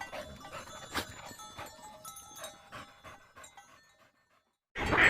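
Dog panting: quick, even breaths, about three or four a second, fading away and stopping about four seconds in. After a brief silence, a louder animal call starts just before the end.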